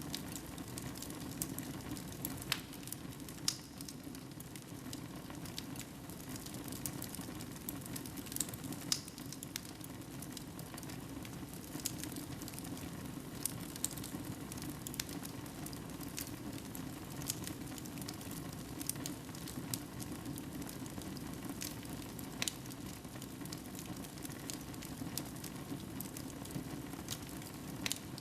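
Wood fire crackling in a fireplace: a steady low rustle of burning with scattered sharp pops and snaps, a few every second.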